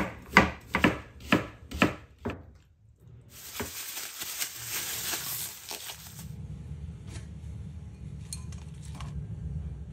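Kitchen knife chopping an onion on a plastic cutting board, about six quick strokes in the first two and a half seconds. Then a plastic bag crinkles and rustles for about three seconds as boiled quail eggs are squashed in it by hand, followed by a low steady hum with a few faint clicks.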